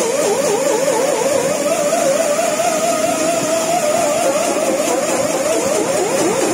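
A steady mechanical whine that rises in pitch at the start, then holds, wavering quickly up and down several times a second.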